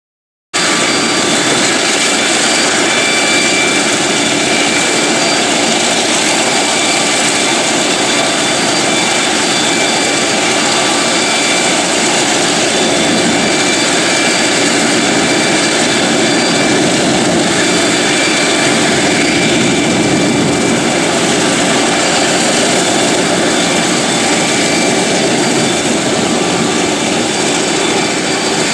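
Boeing B-17 Flying Fortress's four Wright R-1820 Cyclone radial piston engines running as the bomber starts to taxi. Loud and steady, cutting in suddenly about half a second in.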